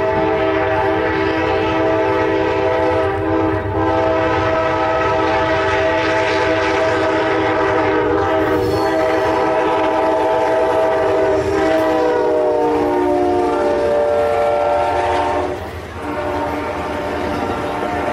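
Air horn of an Amtrak GE P42DC Genesis locomotive sounding one long chord as the train approaches. Its pitch drops about 12 seconds in as the locomotive passes. The rumble and clatter of the passing passenger cars runs underneath.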